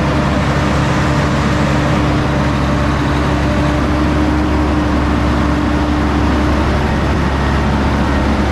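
Concrete pumper truck's engine running steadily, powering its hydraulics, with a steady tone over the engine that stops about two-thirds of the way through.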